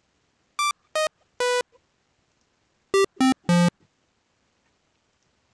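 SunVox Analog Generator synthesizer tones played from the piano keys: two sets of three short notes, each set falling in pitch and ending on a longer note. The waveform is switched between the sets, the second set in a square wave with a denser, buzzier tone.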